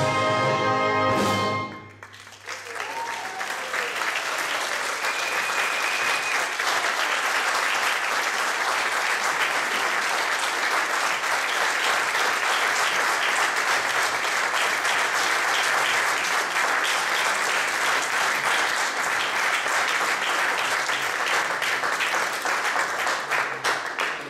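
A brass band holds its final chord, with the flugelhorn solo on top, and cuts off about two seconds in. An audience then applauds steadily.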